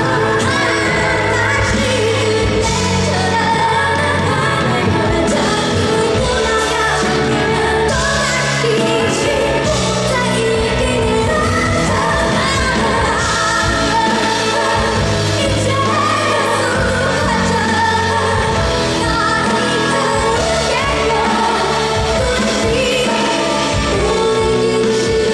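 A woman singing a Korean pop ballad over full band accompaniment.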